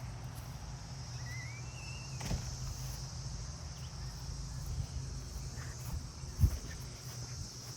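Steady high insect chorus in the garden. A short rising chirp comes about two seconds in, and a single sharp thump, the loudest sound, comes about two-thirds of the way through.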